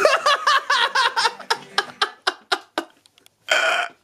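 A man laughing: a quick run of short, pitched 'ha' bursts that trails off over about three seconds, then one short breathy burst near the end.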